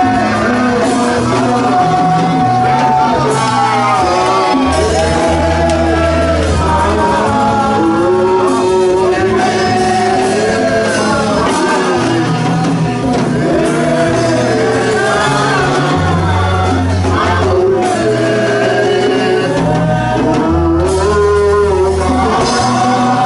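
Live gospel worship music: a man singing into a handheld microphone over a band with keyboard, drums and bass, with held bass notes changing every second or two.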